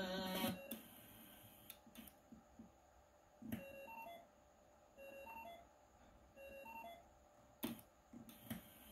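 Radio receiver's beeper giving three pairs of short electronic pips, about a second and a half apart, while its rotary tuning knob is turned. FM-broadcast music from the receiver's speaker cuts off about half a second in, and a few faint clicks come in between.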